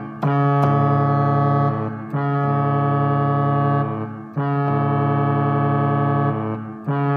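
Electronic keyboard imitating a cruise ship horn: a low, organ-like horn sound held in blasts of about two seconds, sounded four times with short breaks between them.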